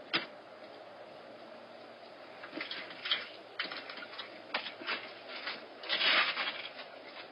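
Bobcat kittens' feet tapping and scrabbling on a wooden deck: scattered sharp clicks that build to a dense flurry about six seconds in.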